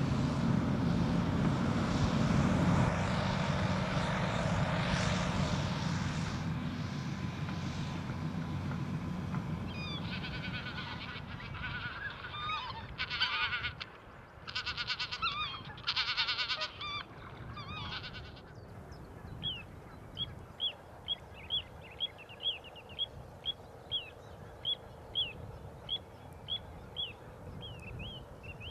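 A tracked hydraulic excavator's diesel engine runs with a steady low hum, fading out over the first several seconds. Then, after a lull, birds give loud harsh honking calls in bursts for about eight seconds, followed by one bird repeating a short high call about twice a second.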